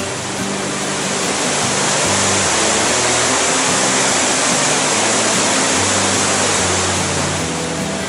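Mountain waterfall and stream rushing over rocky steps into a pool, a steady roar of water that swells about two seconds in and eases near the end. Background music with low bass notes plays underneath.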